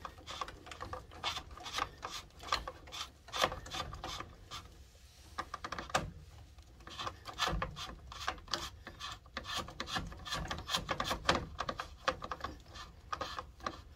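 Plastic interlock-type water purifier filter cartridge being twisted out of its head: plastic rubbing and scraping with a run of irregular small clicks, easing off briefly about five seconds in.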